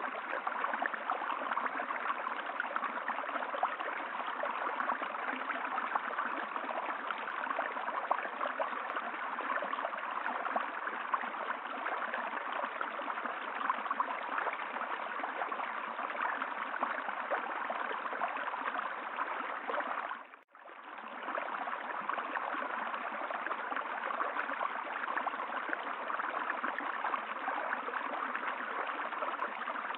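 Steady rushing of a flowing stream. It fades out to a brief dip about two-thirds of the way through, then returns at the same level.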